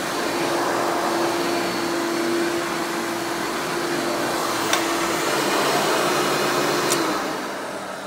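Hoover Legacy Widepath direct-air upright vacuum, rebuilt with a Breathe Easy motor, running with its brushroll on carpet: a steady motor whine over a loud rush of air. A sharp click comes about halfway through. Near the end there is another click, and the motor winds down.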